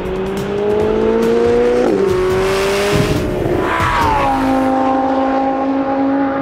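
Supercar engine accelerating hard on a racetrack, its pitch climbing, dropping sharply at a gear change about two seconds in, then climbing again. The pitch glides down again about four seconds in and holds steady after that, with a brief rushing hiss near the middle.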